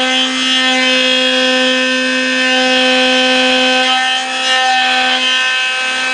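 CNC router spindle running with a steady whine while its cutter planes the machine's wooden table flat, with the noise of the cut under the tone.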